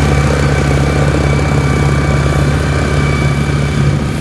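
Engine of a tracked rice-sack carrier running steadily as the loaded machine drives over the stubble.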